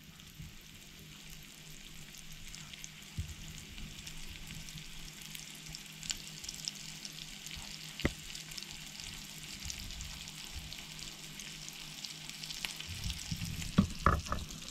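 Semolina-coated mackerel pieces sizzling and crackling in shallow oil in a frying pan, growing slightly louder over time. A sharp click about eight seconds in and a few knocks near the end.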